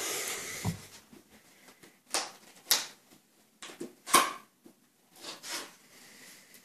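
A cardboard product box being handled by hand: a short rasp at the start as the security seal sticker is picked and peeled, then several brief scrapes and knocks as the box is gripped and turned, the loudest about four seconds in.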